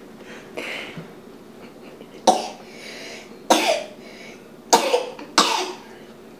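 Four short, sharp coughs from a person, starting about two seconds in and roughly a second apart, the last two closer together.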